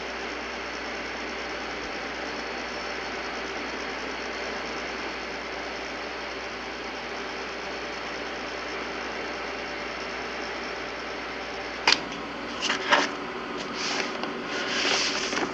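Steady mechanical hum of nuclear power plant machinery. A sharp click comes about twelve seconds in, followed by several short, louder scraping or rustling noises near the end.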